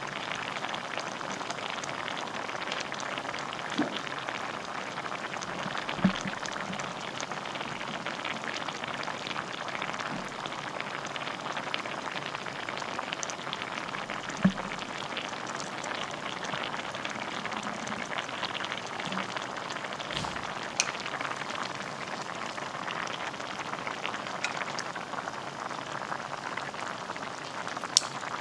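Braised chicken with aged kimchi simmering in a pot: a dense, steady crackle of small bubbles in the sauce, with a few louder pops now and then. A sharp click comes near the end.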